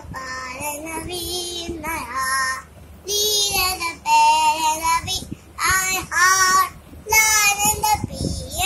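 A young child singing in a high voice, in short phrases of about a second each with brief pauses between them.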